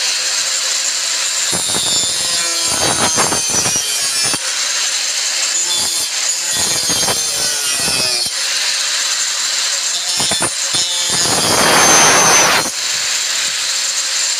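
Angle grinder running with a steady high whine, its disc cutting through thin plywood in a series of rasping passes. The longest and loudest cut comes near the end.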